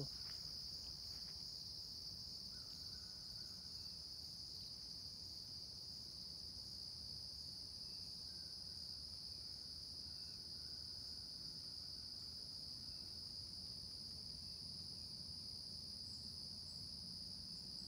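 Crickets and other insects chirring in a steady, high-pitched chorus without a break.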